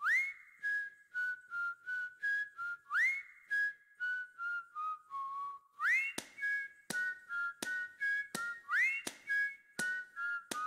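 Background music: a whistled melody in short phrases, each opening with a quick upward slide into a high note and then stepping down through lower notes. A light, regular clicking beat joins about halfway through.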